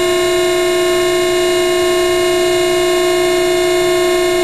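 Strand break-test machine running with a steady, loud, pitched whine as it pulls a strand assembly under rising load.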